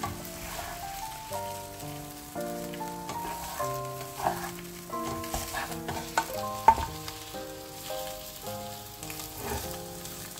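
Beaten egg sizzling in a nonstick frying pan while a spatula folds and scrapes it, with a sharp knock about two-thirds of the way through. Background music of plain stepped melodic notes plays throughout.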